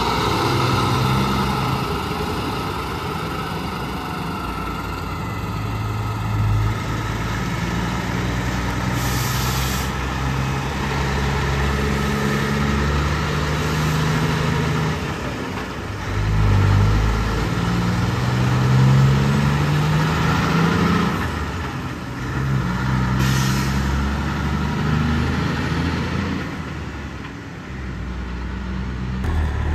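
Diesel semi-truck engines running, their pitch rising and falling several times as the trucks pull through their gears. Two short hisses of air from truck air brakes come about nine seconds in and again about twenty-three seconds in.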